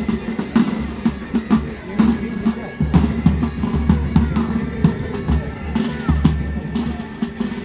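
Military band's drum section playing: snare drum strikes over a heavy bass drum, with steady held tones underneath.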